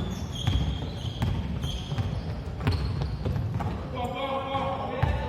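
Basketball being dribbled and bounced on a gym floor, several irregular thuds, mixed with short high squeaks during play. A voice calls out near the end.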